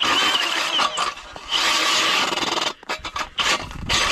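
Electric drill-driven ice auger grinding into lake ice with a harsh scraping, in two runs of about a second each, then a few short stop-start spurts near the end. The drill is bogging down because its battery is cold.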